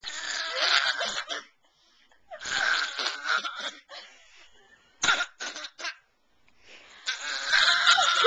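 Imitation of an old man's cough, repeated in four bouts, the last one the longest and loudest.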